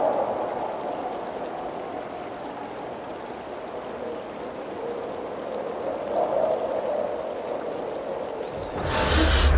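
Flowing river water, a steady rush that eases off a little after the start. Near the end a sudden loud whoosh with a deep rumble sets in.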